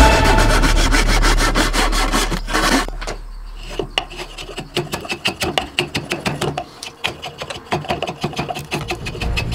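Handsaw cutting across a wooden axe-handle blank in quick, even strokes for about three seconds. After a short break, a file scrapes the clamped wood in slower back-and-forth strokes, shaping the handle's shoulder.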